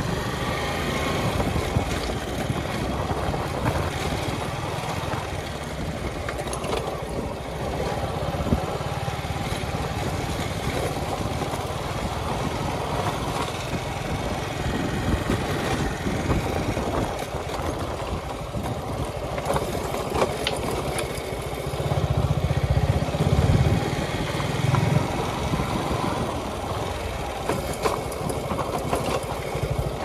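Suzuki Gixxer SF motorcycle engine running at low speed on a rough dirt trail, with scattered knocks and rattles from the bike over the bumps. The engine grows louder for a few seconds about three-quarters of the way through.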